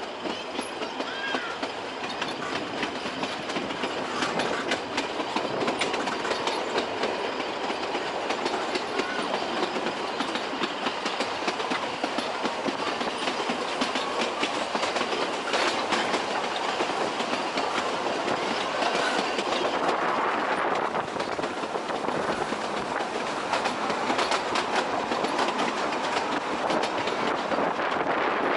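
Puffing Billy narrow-gauge steam train running, heard from on board: the carriages rattle and the wheels click steadily over the rail joints.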